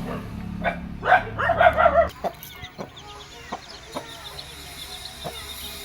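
Aseel chickens: an adult bird gives one loud call about a second in, then three-day-old chicks keep up a faint high peeping, with a few soft ticks.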